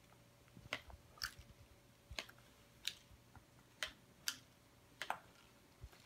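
Paper beak made of two foil party hats making about eight faint, short clicks and crinkles, unevenly spaced, as the wearer opens and closes his mouth and the two halves move.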